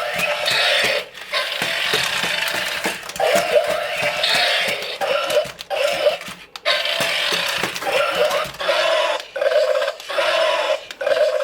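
Electronic sound effects from a remote-controlled toy robot dragon, played through its small built-in speaker as a run of repeated roar-like bursts with short gaps between them, becoming shorter and quicker near the end.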